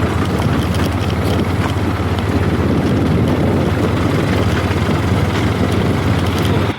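Heavy diesel engine running steadily at close range, a loud low hum with dense rumble over it; the sound cuts off abruptly at the very end.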